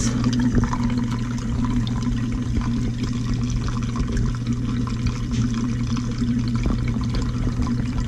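Dishwasher draining, with water running and gurgling through a sink-top air gap over a steady low pump hum. The backflow into the air gap is the sign of a partial clog in the drain line to the garbage disposal.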